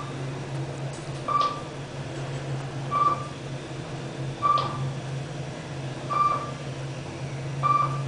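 Kone EcoSpace traction elevator travelling up: its floor-passing chime gives five short single-tone beeps, one per floor, about every one and a half seconds, a chime that sounds pretty messed up. Under them runs the steady low hum of the moving elevator.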